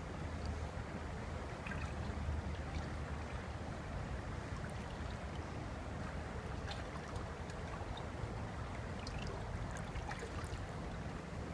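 Steady rush of water from a small waterfall on a slow river, with a few faint high ticks scattered through.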